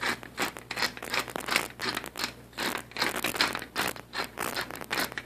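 Hand-twisted pepper mill grinding peppercorns, a steady run of gritty crunching strokes, several a second.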